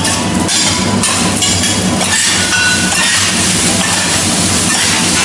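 Metal teppanyaki spatulas clinking and scraping on a steel griddle as a mound of fried rice is chopped and turned, over a steady sizzle.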